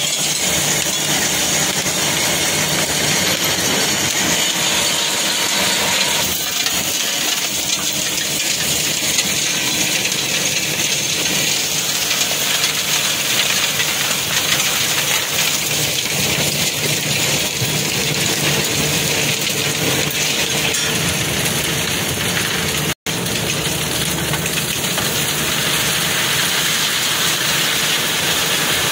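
WMM (wet mix macadam) plant running: conveyor belts and the mixer moving crushed stone aggregate, heard as a steady, dense rush and rattle of stone like heavy rain. The sound cuts out for an instant about three-quarters of the way through.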